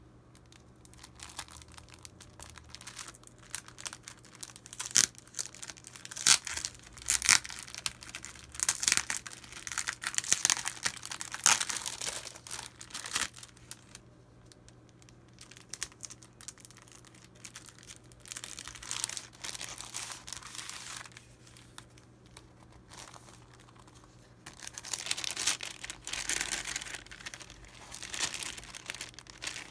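A clear plastic packaging sleeve and the thin kraft-paper bags inside it crinkling as hands open the sleeve and slide the bags out, in irregular bursts with sharp crackles and quiet pauses between.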